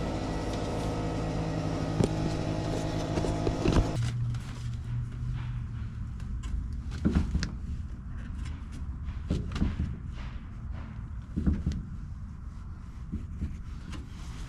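A vehicle engine running steadily for about four seconds, cut off abruptly. Then scattered light knocks and clicks from hand work on car door trim and weatherstripping.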